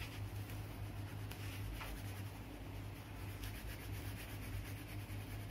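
Wax crayon rubbed back and forth on paper over a clipboard, soft repeated strokes as an area is coloured in, over a steady low hum.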